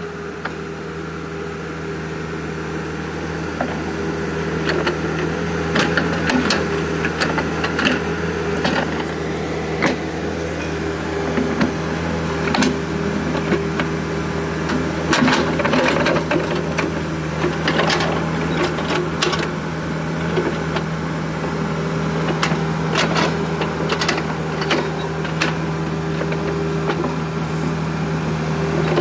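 John Deere mini excavator running steadily, with irregular knocks and clanks from about four seconds in as its bucket levels and packs down soil.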